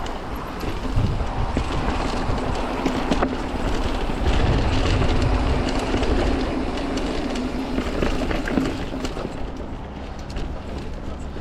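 Mountain bike rolling over rocky, rooty singletrack: tyre noise and a dense rattle of many small knocks from the bike, loudest from about four seconds in.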